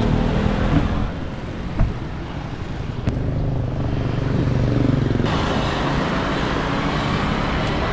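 Road traffic: motor vehicle engines running steadily. The noise drops abruptly about a second in and comes back up around five seconds in.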